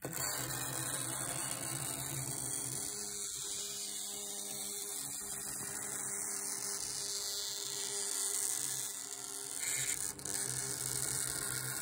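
Cylinder-type vibration motor with an off-centre weight buzzing steadily, shaking a small paper-clip-legged vibrobot built on a spent B6-4 rocket engine casing. It starts abruptly and falters briefly about ten seconds in.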